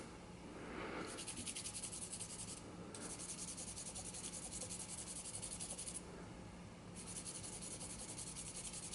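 A small piece of sandpaper rubbed by hand in quick short strokes across the face of a vulcanite pipe stem, sanding off oxidation: a faint, even scratching that stops briefly twice.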